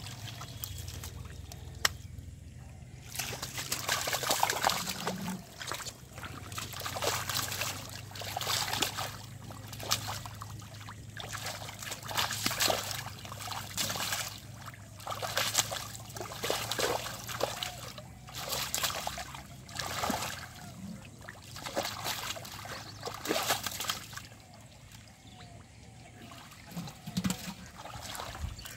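Hands scooping and sloshing through mud and shallow muddy water, in repeated splashy bursts about every second or two that die down near the end.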